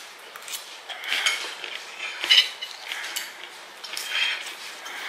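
Serrated steak knife and fork scraping and clinking against a dinner plate while cutting chicken, in several short strokes, the loudest about a second, two and a half seconds and four seconds in.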